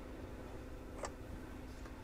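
A single light click about a second in, from handling the wire and power-supply chassis on the workbench, over a steady low background hum.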